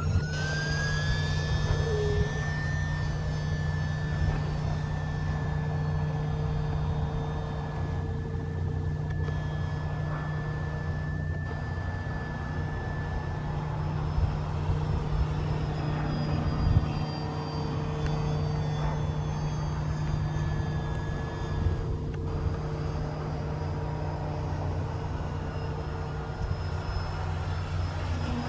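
Electric motor and propeller of a foam-board RC model plane whining as it flies overhead. The pitch climbs at the very start, then holds steady and fades away about halfway through. A steady low rumble lies underneath throughout.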